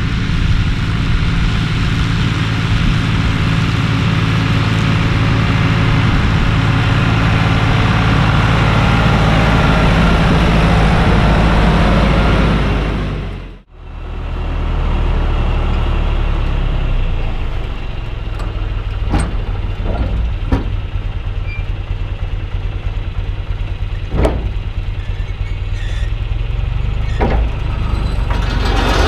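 Tractor engine and rear mower running steadily while cutting grass. The sound fades out and back in about halfway through. After that it is heard close to the mower: a lower steady hum with a few sharp clicks.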